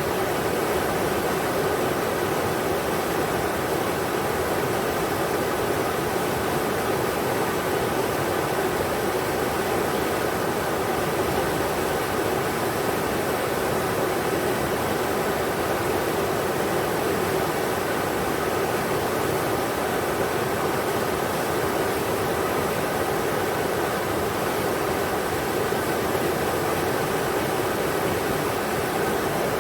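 Englishman River rushing over rocks: a steady, even water noise with no change.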